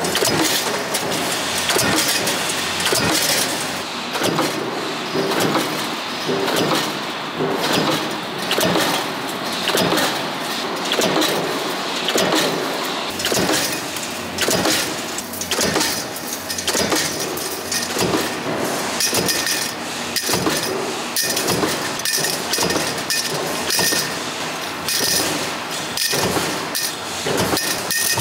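Oil filter production-line machinery running, a dense mechanical clatter with many sharp metallic clicks and clinks, rising and falling in loudness about once a second.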